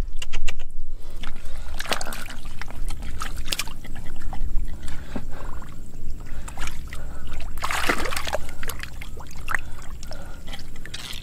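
Hands splashing and sloshing in shallow muddy water while feeling for fish, with irregular splashes and drips and a busier burst of splashing about eight seconds in.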